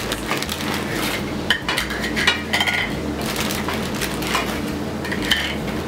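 Light clinks of kitchenware: hard dried pennoni tubes set down one by one on a ceramic plate, and a wooden spoon stirring in a sauté pan, over a steady low background hum. The clinks come a few times, with a short ring.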